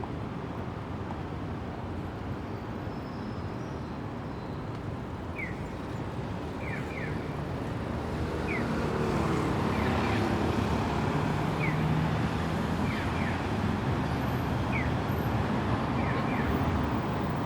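Light city road traffic: a steady hum of passing cars that swells about halfway through as a vehicle engine draws closer. Short high chirps come roughly once a second.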